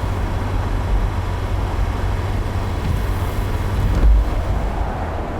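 Car driving, heard from inside the cabin: a steady low road and engine rumble with a light hiss, and a low thump about four seconds in.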